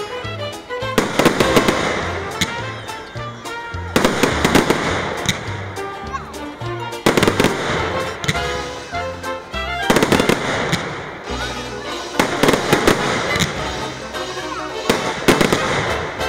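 Fireworks going off, dense volleys of crackling and popping bursts starting up about every three seconds, with music playing underneath.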